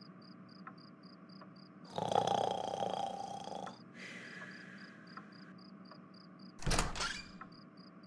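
Cricket chirping sound effect, steady high chirps about four a second, as night ambience. About two seconds in comes a louder rushing sound lasting nearly two seconds, then a softer hiss, and near the end a short loud thump.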